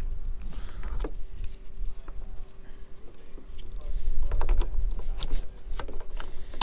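Plastic clicks and knocks as seat-strap clips and fittings on the side of a plastic Hobie Mirage Passport kayak are handled. They come in a short cluster about a second in and a busier run from about four to six seconds in, over a low rumble and a faint steady hum.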